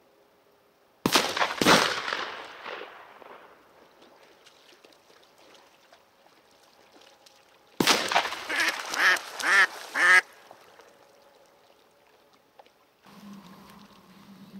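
Two sharp, loud bangs about half a second apart, each with a long fading tail. Several seconds later a hen decoy duck gives a loud series of four or five quacks.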